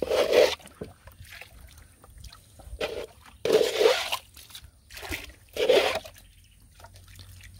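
Water splashing and trickling as a cast net is hauled up out of a shallow channel by its hand line, with three main splashes a couple of seconds apart.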